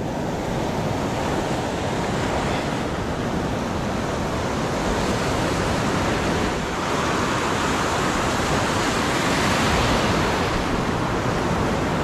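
Heavy rain pouring down in a steady hiss, which grows louder about seven seconds in.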